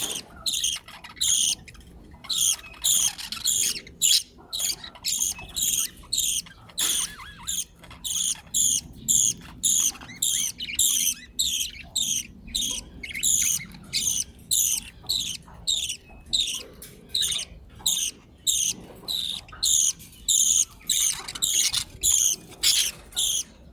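Budgerigar chicks begging while their father feeds them: a rapid, steady series of short high-pitched calls, about two a second.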